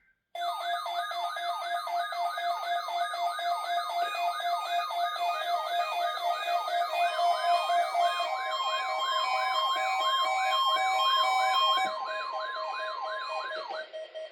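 Electronic emergency alert attention signal for a weekly test: a warbling tone sweeps up and down about two and a half times a second over steady tones, like a siren. A further steady tone joins about halfway through, and the alert cuts off suddenly near the end.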